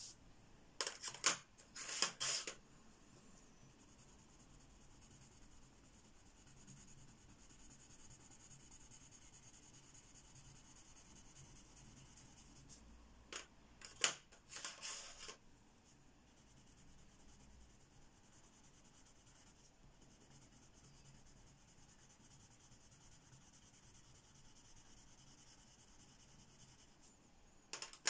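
Coloured pencil rubbing back and forth on paper as swatches are shaded, in three short bursts (about a second in, around fourteen seconds in, and near the end), with a few sharp clicks among them. Faint room tone in between.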